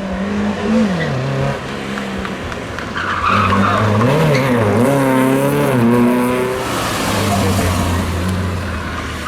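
Classic rally car engine revving hard, its pitch rising and falling several times as it shifts and goes through corners, loudest from about three to seven seconds in.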